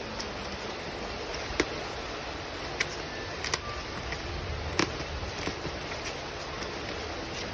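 Packaging being handled during an unboxing: a few scattered light clicks and taps over a steady hiss.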